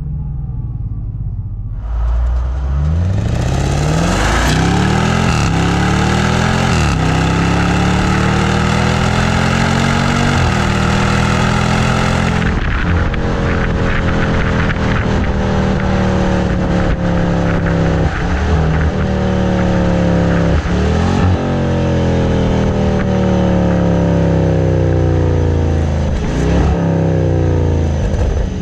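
2025 Land Rover Defender 110's 5.0-litre supercharged V8 exhaust, loud throughout. It accelerates hard from about two seconds in, the pitch climbing and dropping back at each upshift. At about twelve seconds it lifts off and slows, the pitch sinking with three short jumps up as it downshifts.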